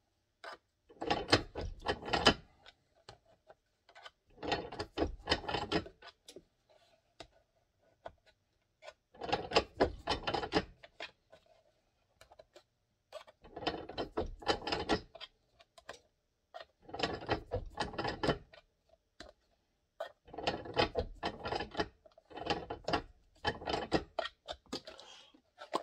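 Seven short bursts of rapid mechanical ratcheting clicks, each lasting a second or two, with a few seconds of quiet between them.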